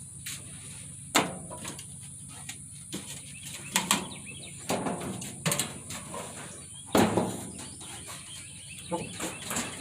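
Scattered knocks and clanks from handling a gas grill and its parts, about half a dozen sharp ones spread through, over a steady high hiss in the background.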